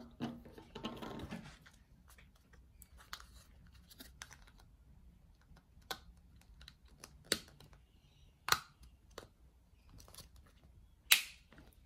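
Faint, scattered clicks and taps of hard plastic toy parts: small plastic handles being pushed into a plastic LOL Surprise ball shell, with two sharper clicks in the last few seconds.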